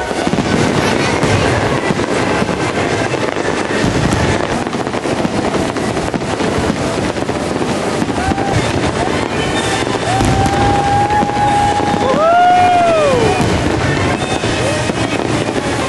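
Fireworks display: dense continuous crackling and popping of many shells. In the second half, several whistle-like tones glide up and then down.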